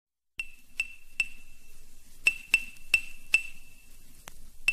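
A string of sharp, bright clinking pings, each strike ringing briefly at one high pitch, spaced evenly about 0.4 s apart. Three come about half a second in, then a short pause, then a longer run.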